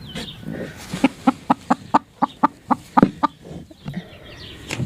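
Broody hen clucking in a rapid run of short, sharp clucks, about four a second, upset at being disturbed on her nest.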